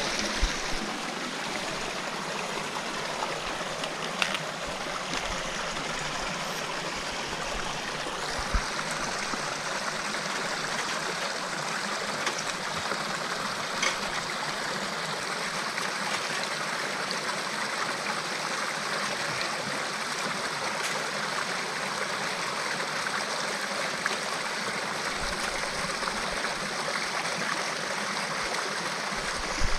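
Small rocky stream rushing over little cascades, a steady even flow of water, with a few light knocks now and then.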